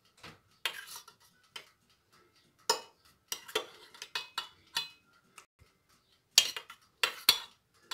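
Metal spoon clinking against a stainless steel saucepan and a bowl while lemon peel pieces are scooped out of syrup: a string of separate clinks and taps, the loudest a few quick ones a little over six and seven seconds in.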